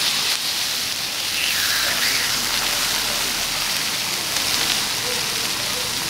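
Marbled beef slices sizzling steadily on a hot iron griddle over charcoal, the fat spitting as they sear.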